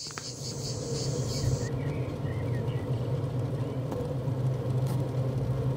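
A steady low hum, with a high pulsing chirp over it that stops after about a second and a half.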